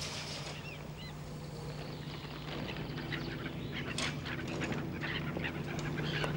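Steady low hum of an approaching trolleybus, growing a little fuller about halfway through, with scattered short bird calls that come more often in the second half.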